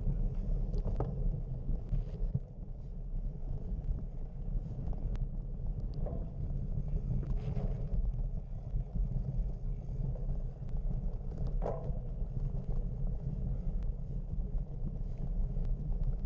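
Steady low outdoor rumble, with a few faint distant shouts about a second in, around six to seven seconds in and near twelve seconds in.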